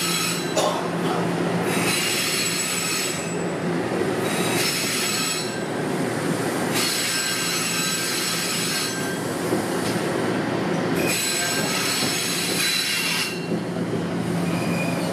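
Toronto Rocket subway train running, heard from inside the car. Steady rolling noise and a low motor hum carry throughout, with a high-pitched wheel squeal that comes and goes in spells of a second or two, several times over.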